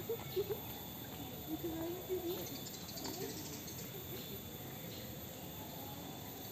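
Faint voices of people talking in the distance over a steady outdoor background, mostly in the first couple of seconds.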